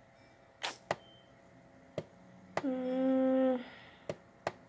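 A woman's brief closed-mouth hum on one steady pitch, about a second long, in the middle of the stretch, with a few soft clicks scattered before and after it.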